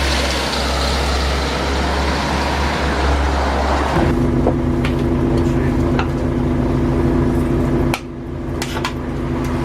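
Volvo Olympian double-decker bus heard from on board: engine and road noise, which about four seconds in changes abruptly to a steady droning hum with a few sharp clicks and rattles. Near the end the level drops suddenly, then builds back up.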